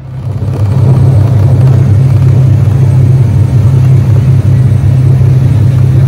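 Loud, steady low drone of running machinery with a rushing noise over it, swelling in over the first second.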